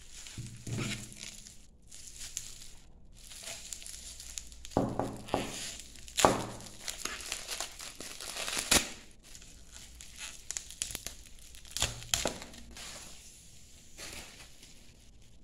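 Plastic bubble wrap around a parcel being handled and pulled open: irregular crinkling and rustling, with several sharp cracks.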